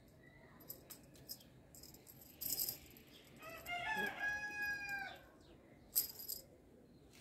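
A rooster crowing once: a single drawn-out call of a little under two seconds, about halfway through. Two short rustling bursts come about a second before and a second after it.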